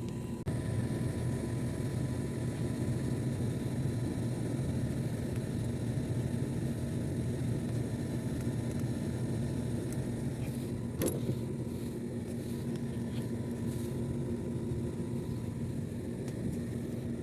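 A steady low machine hum, with a single sharp click about eleven seconds in.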